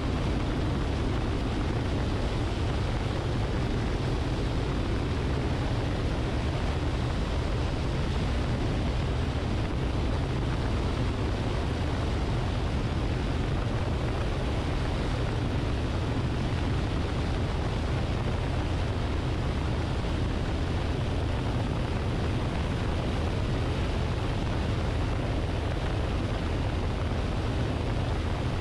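Luscombe light airplane in flight, heard from a camera mounted on its wing: a steady drone of engine and rushing air, unchanging throughout.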